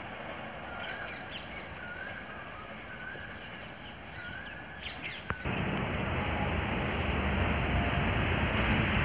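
Birds chirp over a faint, distant train rumble. About five seconds in, the sound jumps to the much louder rumble of a pair of diesel locomotives and their train approaching at speed, and it grows steadily louder.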